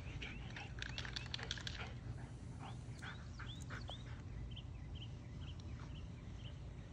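A dog panting in quick short breaths, then a series of short, high chirping bird calls, some of them curving down in pitch, a few a second.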